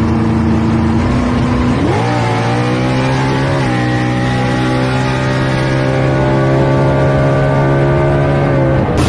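Race car engine revved up in two quick rises and then held at steady high revs; it cuts off abruptly near the end.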